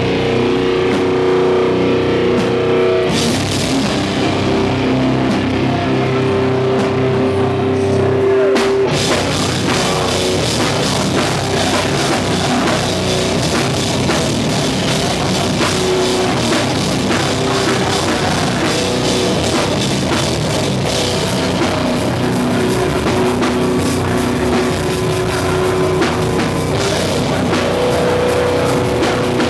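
Live hardcore band playing loud: held, ringing guitar notes at first, then the full band with pounding drums and crashing cymbals comes in about nine seconds in.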